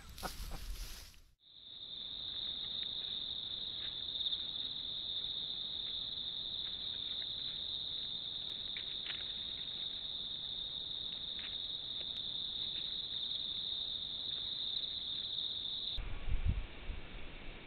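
Night insects chirping in a steady, high-pitched chorus. The chorus cuts off abruptly near the end, giving way to a softer hiss with a few low thumps.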